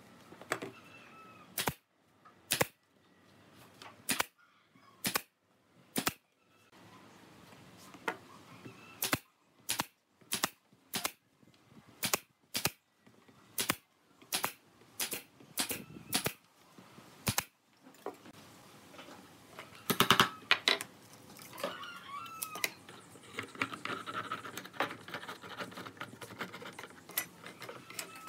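A series of sharp single knocks, about twenty, spaced unevenly over the first eighteen seconds, then a louder tight cluster of them about twenty seconds in.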